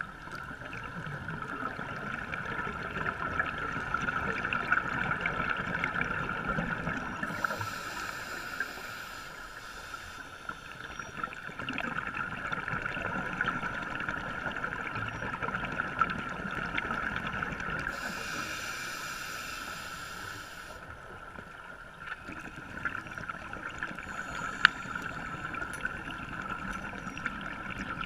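Underwater sound through a camera housing on a scuba dive: a steady hiss with fine crackle, broken twice by bursts of bubbles from a scuba regulator's exhaust, about ten seconds apart. One sharp click sounds near the end.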